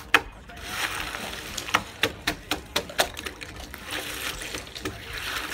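Ice being knocked and broken off painted wooden beams by gloved hands: an irregular run of sharp cracks and taps, two or three a second, with crunching of ice between them.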